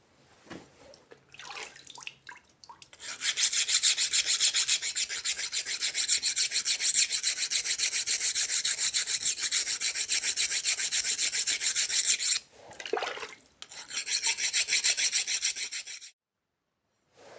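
A hand file worked in fast, even strokes over a forged steel knife blank. It runs for about nine seconds, pauses briefly, runs again for a couple of seconds, then stops.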